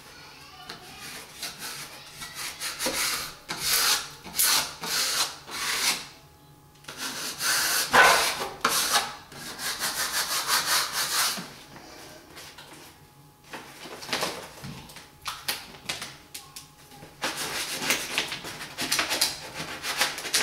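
Paper backing of a vinyl wall decal rustling and rubbing as it is peeled away and smoothed onto the wall by hand. It comes in uneven stretches of a few seconds with short pauses between.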